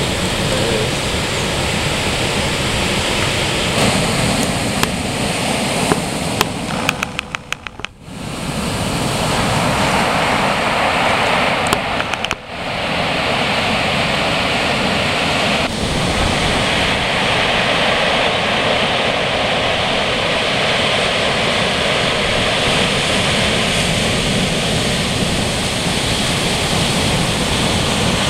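Ocean surf breaking and washing in, a steady loud rush of white water. It fades out briefly about eight seconds in, after a run of sharp clicks, and drops out for a moment again about twelve seconds in.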